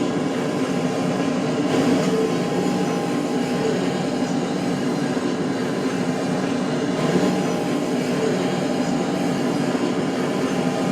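Passenger train running steadily along the track, a continuous rumble with a steady hum of a few tones and no breaks.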